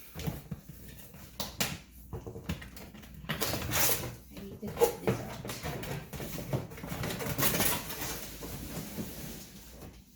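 Cardboard box and packaging being handled: irregular rustling, scraping and light knocks as the box is moved and opened.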